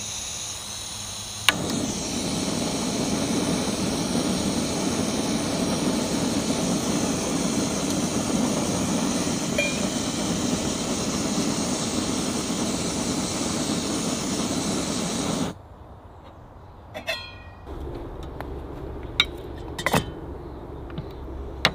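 Snow Peak GigaPower Stove Auto canister stove: a brief hiss of gas, a sharp click of the auto igniter about a second and a half in, then the burner running steadily with a loud even rushing sound until it is shut off about fifteen seconds in. After that, light metallic clinks as the folding stove is packed into a metal mug.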